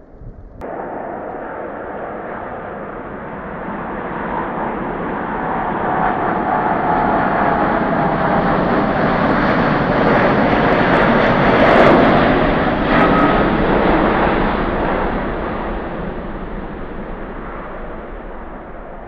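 Jet engines of a twin-engine Airbus A330 airliner at takeoff power as it runs down the runway past the listener. The sound starts abruptly about half a second in, builds to its loudest about twelve seconds in, then fades as the aircraft lifts off.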